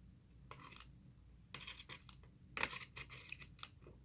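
Eating sounds: a few short bursts of scraping and clicking, with the loudest cluster about two and a half seconds in.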